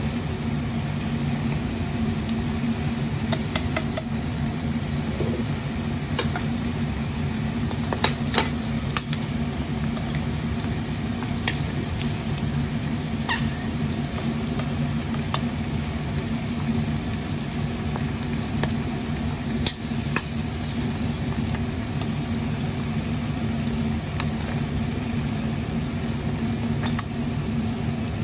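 Battered prawns deep-frying in hot oil, the oil sizzling and bubbling steadily with scattered sharp pops and clicks, over a steady low hum.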